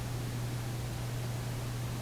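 Steady low hum with an even hiss underneath, unchanging throughout; no distinct picking clicks stand out.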